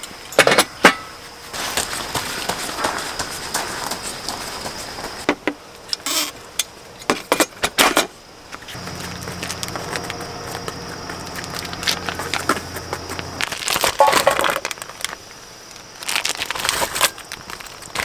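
Clinks, knocks and rattles of metal camp cookware and utensils being handled, with a plastic bag rustling near the end. A low steady hum runs through the middle for about four seconds.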